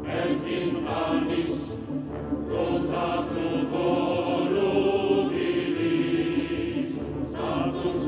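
Background music: a choir singing long held notes.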